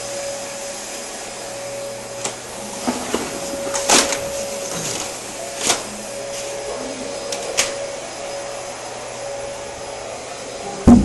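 A steady machine-like whir with a constant hum, broken by several sharp clicks and knocks and one loud thump near the end.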